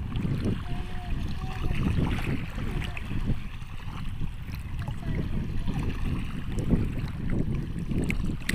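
Sea water washing and churning at the shore, with wind on the microphone.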